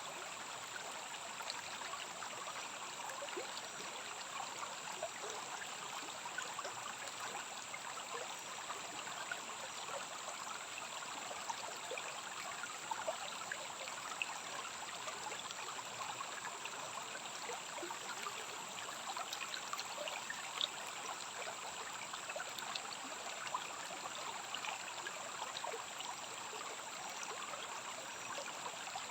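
Rainforest stream running steadily, water trickling and splashing with small drips, over a constant high-pitched band of sound.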